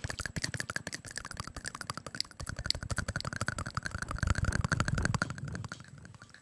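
Layered ASMR mouth sounds: a dense, rapid run of wet tongue and lip clicks close to the microphone, many per second, swelling about four seconds in and thinning out near the end.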